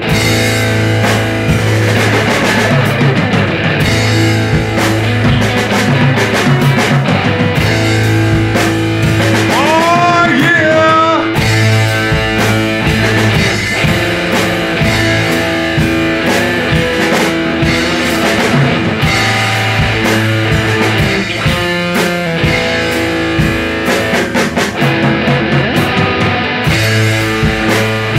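Loud improvised garage rock from a band, electric guitar over a drum kit, with a few rising, bending notes about ten seconds in.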